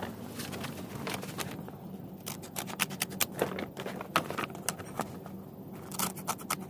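Irregular small clicks, light scraping and crinkling from a plastic grow bag being cut and handled by hand, as triangular slits are made at its sides for the stand's clamps.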